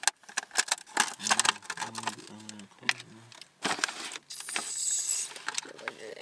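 Aluminium foil takeout pan being opened by hand: the crimped foil rim crinkles and clicks as it is pried up. Near the end there is a louder burst of crisp rustling as the lid is pulled off.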